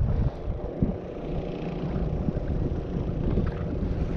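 Steady wind rushing over the microphone of a kayak-mounted camera, with choppy water lapping at the kayak's hull.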